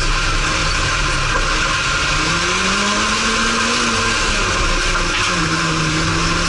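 Autocross race car's engine heard from inside the cabin at speed on a dirt track. The engine note climbs about two seconds in, falls away near four seconds and picks up again about five seconds in, under a loud, constant rushing noise.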